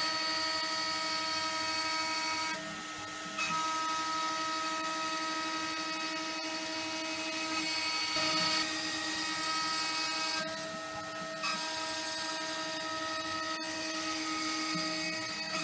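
Small CNC milling machine's spindle running at high speed with a steady high-pitched whine while its end mill cuts into a wooden blank, over a steady hiss. The hiss drops away briefly twice, about three and eleven seconds in.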